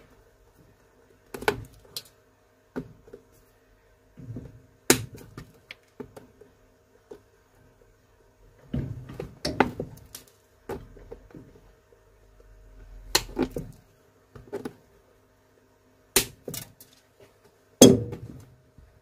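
End-cutting pincers snipping old nails off a shoe's heel seat and knocking against the rubber sole: about a dozen sharp, irregular clicks and knocks, the loudest near the end, over a faint steady hum.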